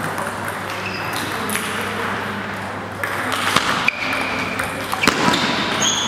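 Celluloid/plastic table tennis ball being struck by bats and bouncing on the table during a rally: a series of sharp clicks, coming more often in the second half, over the murmur of a large sports hall.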